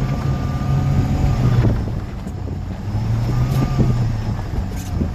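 Subaru Sambar mini truck's engine running as it drives, a steady drone with scattered knocks and rattles; the drone eases off about two seconds in and builds again about a second later.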